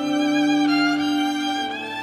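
Accompanying music played on a bowed string instrument: long held notes that shift to a new pitch about two-thirds of a second in and again near the end.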